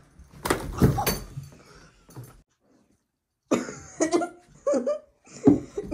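A brief harsh, noisy burst about half a second in, then a child giggling in short bursts from about three and a half seconds in.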